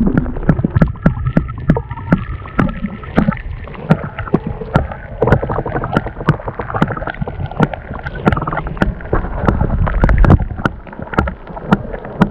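Paddling an inflatable boat on a river: a run of irregular knocks and splashes from the paddle strokes over a continuous low rumble.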